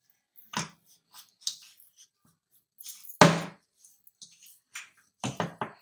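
Hands kneading kachori dough in a ceramic bowl, pressing it down to work the air out: irregular soft squishes and thumps. The loudest comes about three seconds in, and a quick run of them comes near the end.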